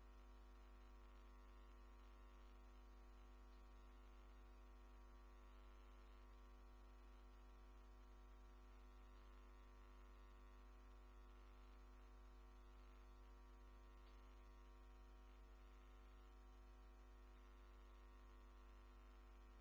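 Near silence: a faint, steady electrical hum with no other sound.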